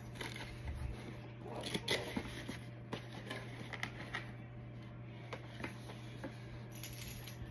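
A boxed Funko Pop figure being handled and checked: faint, scattered rustles and light clicks of its cardboard-and-plastic packaging, over a low steady hum.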